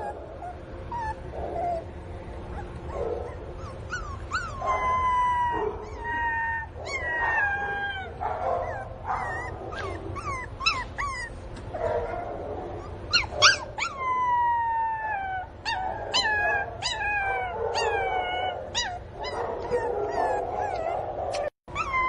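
Miniature pinscher puppy crying and whining over and over, a puppy crying for its mother: high cries that slide down in pitch, one after another, mixed with short sharp yelps.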